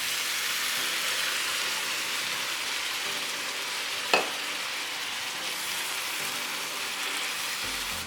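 Chicken udon noodle stir-fry sizzling steadily in a hot pan, the sauce just poured in. There is one sharp knock about four seconds in.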